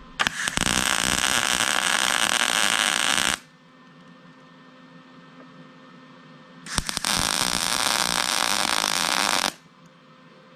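Arc welding on steel: two welding runs of about three seconds each, a few seconds apart. Each starts with a stuttering crackle as the arc strikes, holds a steady, loud frying crackle, then stops abruptly.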